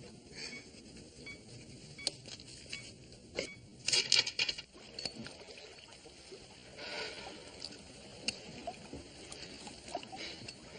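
Water splashing and lapping in an indoor swimming pool as a man swims, among scattered light clicks and rustles, with a louder burst of splashing noise about four seconds in.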